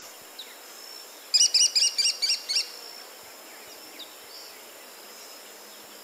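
American kestrel calling: a quick series of about eight sharp, evenly repeated high "kee" notes lasting about a second and a half, the falcon's typical loud, repetitive call. Faint chirps of other birds and a thin steady high tone sit behind it.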